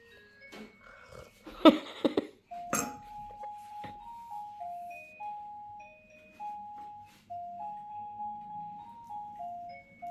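A children's electronic toy playing a simple beeping tune, one note at a time, stepping up and down. A brief loud noise cuts across it about two seconds in, followed by a sharp click.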